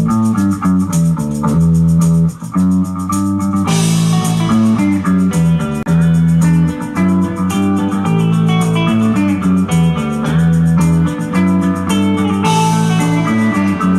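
Live rock band playing: electric guitars, bass, keyboards and drums over a fast steady beat. The sound brightens about four seconds in.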